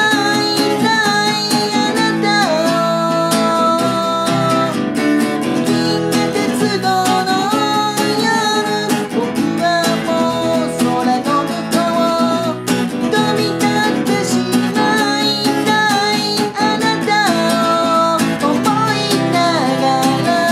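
A man singing in Japanese while strumming chords on an acoustic guitar.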